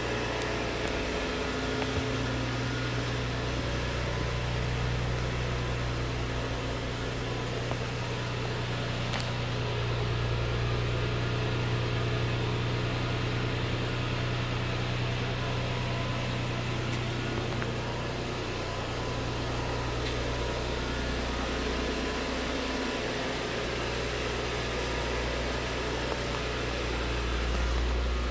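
2009 Nissan Pathfinder's 4.0-litre V6 idling steadily, a low even engine and exhaust drone.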